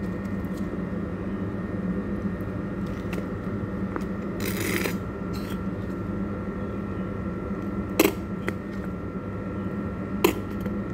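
Plastic squeeze bottle of stone-ground mustard being squeezed into a ceramic bowl: a short sputtering squirt about halfway through, then two sharp clicks, over a steady low hum.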